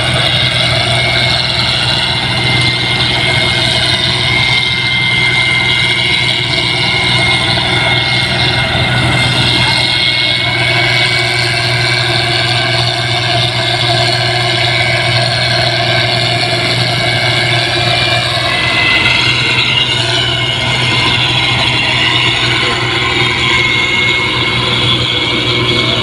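8060 rice combine harvester running steadily at working speed, its engine and machinery making a dense, even sound with a thin high whine held over it.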